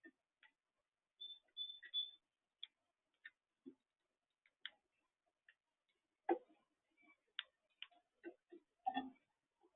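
Faint, irregular clicks and taps, with a few short high-pitched chirps about a second in.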